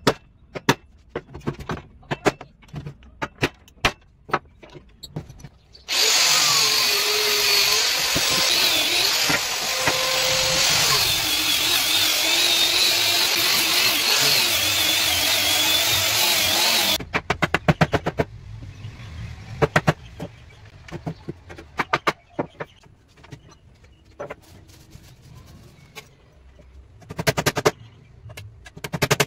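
Hammer blows on a wooden frame, followed by a handheld angle grinder with a sanding disc running steadily on a wooden plank for about eleven seconds. It cuts off suddenly, and the hammer tapping resumes, with quick runs of blows near the end.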